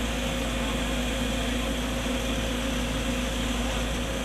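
Heavy diesel engine of an excavator running steadily, a constant low drone with a steady hum.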